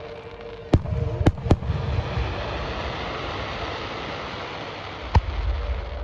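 Fireworks shells bursting overhead: three sharp bangs close together about a second in and one more near the end, each followed by a low rumbling echo, over a steady background hiss.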